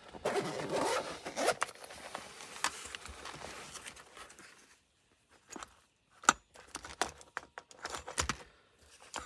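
Rummaging for a pair of snips among tools: a rasping, rustling scrape for the first four seconds or so, then scattered sharp clicks and knocks as tools are handled.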